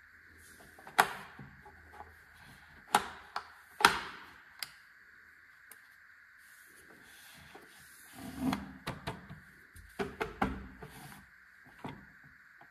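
Plastic housing of an electric bug zapper being handled and turned: a few sharp clicks in the first five seconds, then a cluster of duller knocks and rubbing in the second half, over a steady high-pitched hum.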